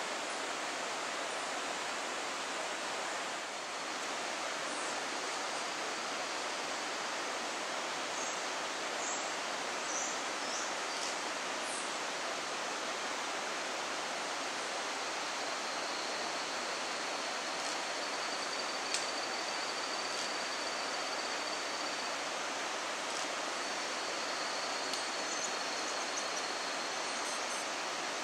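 Steady, even rushing hiss of forest ambience with no monkey calls. A few faint high chirps come about a third of the way in, and a thin high steady whine runs for several seconds in the second half.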